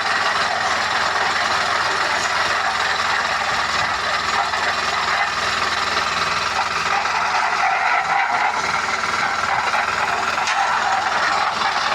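Construction machinery running steadily: a continuous mechanical noise that holds even throughout.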